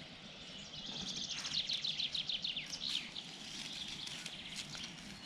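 Songbird singing outdoors: a fast run of high, sliding notes that starts about a second in and lasts some two seconds, followed by fainter chirping.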